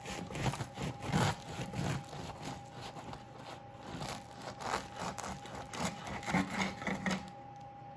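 Knife sawing back and forth through a sourdough cinnamon raisin loaf with a sugar-glazed, hardened crust, about two to three strokes a second, stopping a little after seven seconds in.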